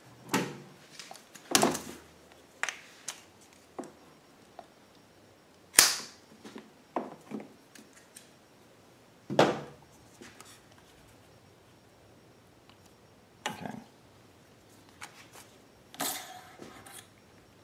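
Scattered sharp clicks and knocks of hand work on a generator's rubber fuel hose and fittings, about five strong ones several seconds apart with lighter taps between.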